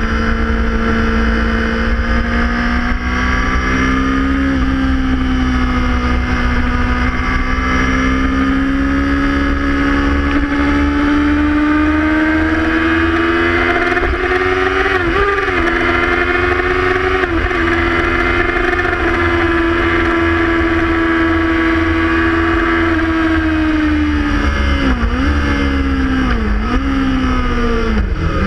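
Sport motorcycle engine at high revs under hard acceleration, heard through an onboard camera with heavy wind rumble. Its pitch climbs slowly along the straight, wavers briefly about halfway, and holds. Near the end it falls with three quick dips as the bike changes down for a corner.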